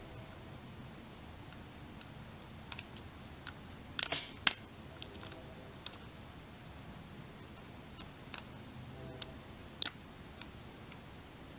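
Scattered, irregular small metallic clicks and taps from a lock pick and tension tool working inside a stainless steel disc padlock. The loudest are two sharp clicks about four seconds in, half a second apart, and another near ten seconds.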